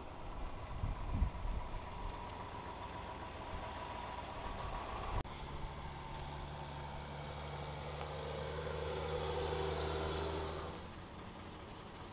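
Heavy military vehicle engines running, with a few low thumps about a second in. After a sudden cut about five seconds in, a Stryker eight-wheeled armoured vehicle's diesel engine drones steadily as it drives past, growing louder and then fading out shortly before the end.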